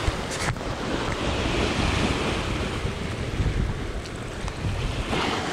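Sea waves breaking and washing over rocks at the water's edge, with wind buffeting the microphone; a brief click about half a second in.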